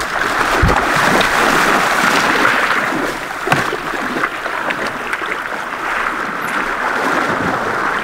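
Shallow seawater splashing and sloshing as a surfer wades in pushing a surfboard and starts paddling, a steady wash of water with small sharp splashes through it.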